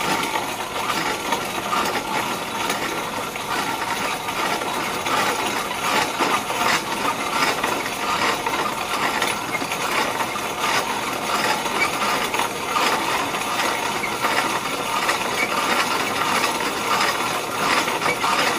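Corona-style grain mill crushing malted barley between its grinding plates: a steady, dense crackling and grinding of kernels being cracked as the mill turns.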